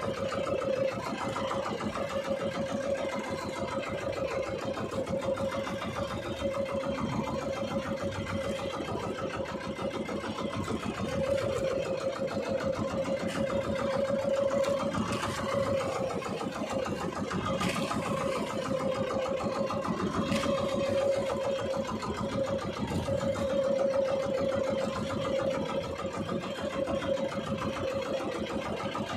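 Small fishing boat's engine running steadily, a constant hum with a fast even pulse. A few faint clicks sound around the middle.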